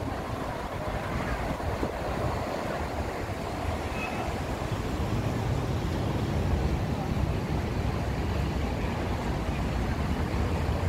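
Steady noise of city street traffic, with wind rumbling on the phone's microphone.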